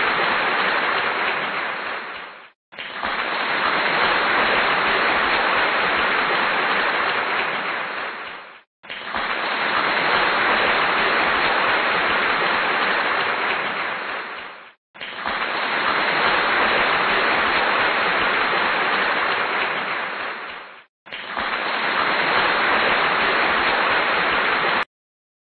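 Dense applause, a crowd clapping, coming in five stretches of about six seconds, each tailing off and broken by a brief silence before the next starts. It stops abruptly near the end.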